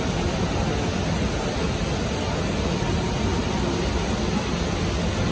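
Steady, even rushing noise of a busy food-stall kitchen, with a low hum underneath and no single event standing out.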